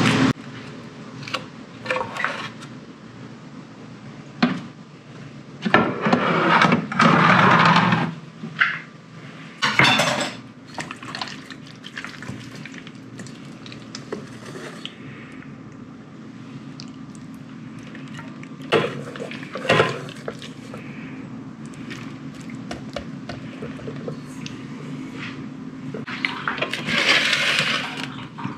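Kitchen handling noises: wet squishing of sauce-coated raw chicken thighs being worked by hand in a metal bowl, with scattered knocks and clatter of pans and dishes. A steady low hum runs underneath.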